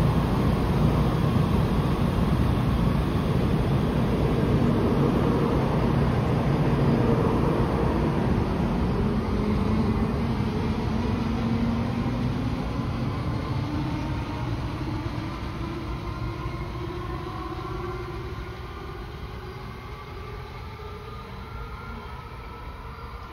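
Taiwan High Speed Rail 700T shinkansen-type train pulling away from the platform and accelerating into the tunnel. The running noise of the cars goes with a whine whose pitch rises steadily, and the whole sound fades as the train leaves.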